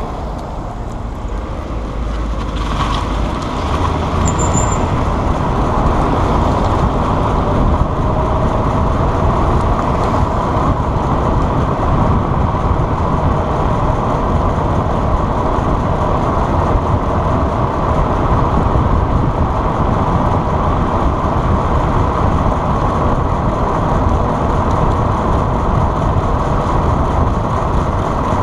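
Steady running and road noise of a moving vehicle, building up over the first few seconds, with a faint steady squeak from the area of a wheel.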